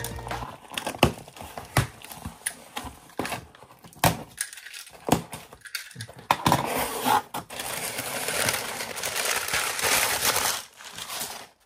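A parcel being opened by hand: scattered clicks and scrapes, then from about six seconds in a few seconds of dense crinkling and rustling as crumpled paper packing is pulled apart.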